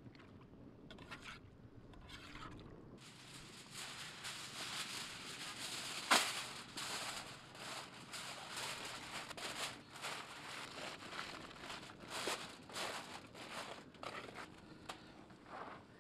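Aluminium foil crinkling and rustling as a sheet is pulled off the roll and pressed down over a cooking pot. It starts a few seconds in, with one sharp crack about six seconds in.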